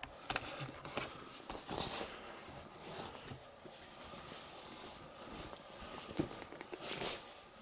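Footsteps over a floor littered with fallen plaster and debris: irregular crunches, scuffs and clicks, several sharper ones in the first two seconds and again near the end.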